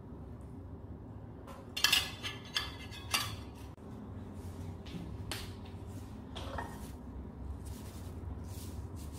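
Kitchen clatter: a few sharp clinks of a metal spatula and dishes, about two to three seconds in, then lighter scattered taps and clicks over a steady low hum.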